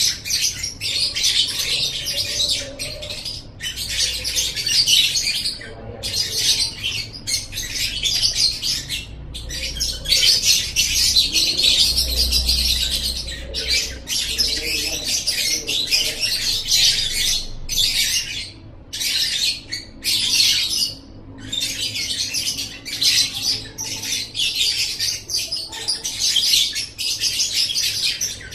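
Lovebird ngekek: a long, rapid, nearly unbroken stream of high-pitched chattering, with only short pauses every second or few.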